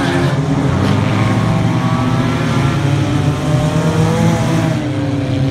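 Sport compact race cars' engines running hard around a dirt oval, several engines at once, their pitch rising and falling as the cars accelerate through the straights and pass by.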